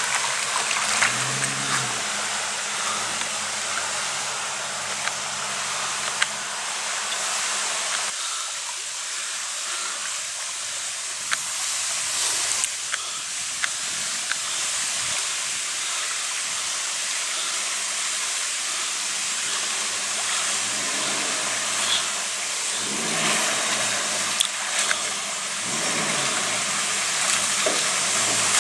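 Land Rover Discovery engine running at low revs as the 4x4 wades through a shallow river, over the steady rush of flowing water. The engine fades under the water noise mid-way and comes back in the last third, its revs rising and falling.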